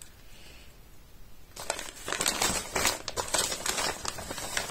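Parcel packaging crinkling and rustling as hands open it, starting about a second and a half in with a dense run of irregular crackles.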